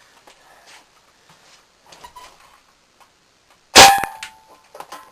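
A single loud shot from an airsoft M4 rifle, with the BB striking a beer can almost at once and leaving a brief metallic ring, about four seconds in. Faint handling clicks come before it and a few small clicks after.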